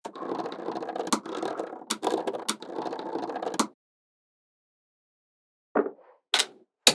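Small magnetic balls rattling and rolling against one another, with a few sharp clicks as balls snap together; the rattle stops, and after a pause three short clicks of balls snapping into place follow near the end.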